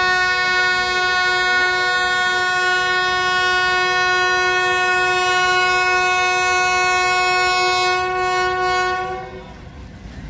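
Diesel locomotive's air horn sounding one long, steady blast of several notes together, held about nine seconds as the train approaches through fog. The blast then stops, leaving the low rumble of the approaching train.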